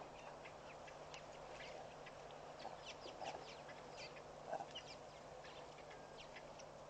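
Faint waterhole ambience: many short bird calls and chirps scattered through, over a steady low background hiss.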